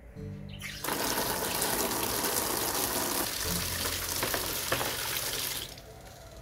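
Water pouring from a tap into a plastic basin already holding water, splashing steadily. The flow starts about a second in and stops shortly before the end.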